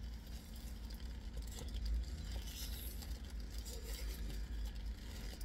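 Light rustling and small clicks, typical of handling a food wrapper, over a steady low hum in a car cabin.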